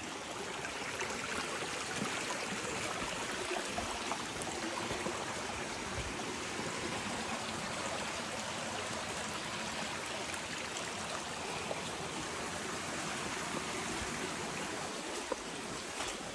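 Shallow rocky creek running over stones, a steady rush and trickle of water.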